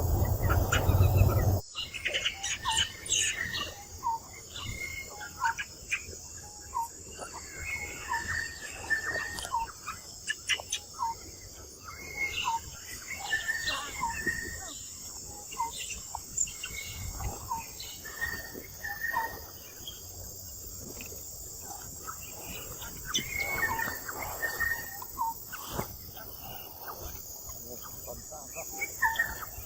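Insects chirring steadily, with many short, high chirps or squeaks from animals repeating irregularly throughout. A louder rushing noise cuts off abruptly about two seconds in.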